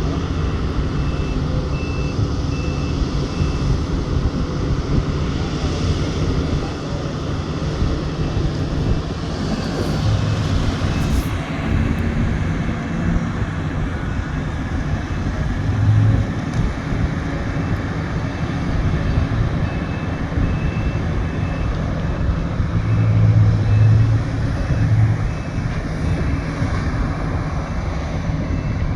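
Heavy diesel engines of a Sany SY980HS mining excavator and a Komatsu HD785 haul truck running during loading. The engine note swells in surges as it takes load. A backup alarm beeps briefly twice, once near the start and again about two-thirds of the way through.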